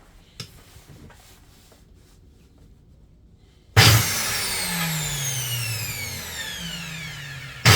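Bosch angle grinder's electric motor test-run with its new carbon brushes. After a few faint handling clicks, it is switched on with a sharp burst and then winds down, its whine falling steadily in pitch as the disc coasts. A second burst starts right at the end.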